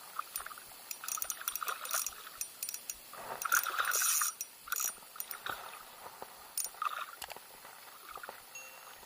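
Irregular clicking from a spinning fishing reel, with a burst of water splashing about three seconds in that lasts over a second.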